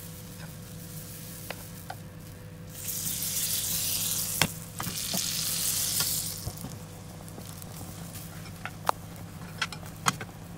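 Pancake batter sizzling in a hot nonstick frying pan, the sizzle swelling loud for a few seconds in the middle, over a steady low hum with a few sharp clicks.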